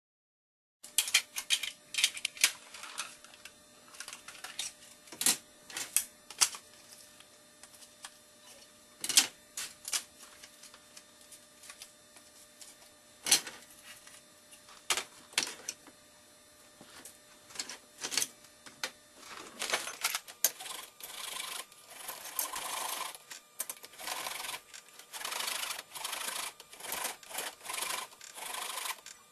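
Plastic parts of a Nerf DT3 pistol being handled and worked on by hand: irregular sharp clicks and knocks, then from about two-thirds of the way through, denser runs of scraping strokes.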